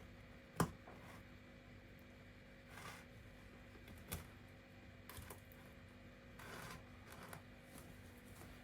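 A few light clicks and knocks, with soft rustling in between, over a faint steady hum.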